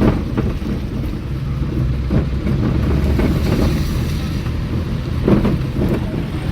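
Vehicle driving along a country road: a steady low engine and road rumble with wind buffeting the microphone and a few brief jolts from bumps.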